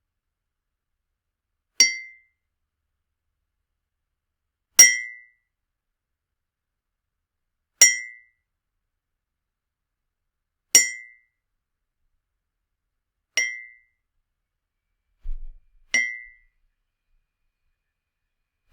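Cartoon blink sound effects: six short, bright clinks, each with a brief ringing tone, about three seconds apart, with a faint low double thud just before the last one.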